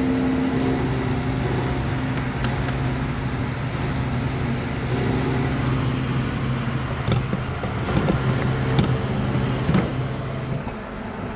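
Vehicle engine idling with a steady hum, then shutting off about ten and a half seconds in. A few short clicks and knocks come shortly before it stops.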